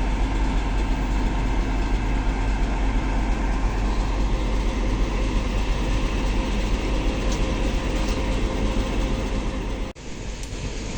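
Passenger train standing after arrival: a steady low rumble with a constant hum, typical of a diesel-hauled train idling at the platform. About ten seconds in it cuts off abruptly to a quieter, different steady hiss.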